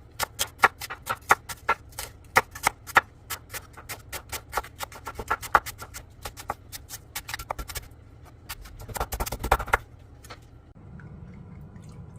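A run of sharp, irregular clicks or taps, about three or four a second, with a quick dense flurry of them about nine seconds in.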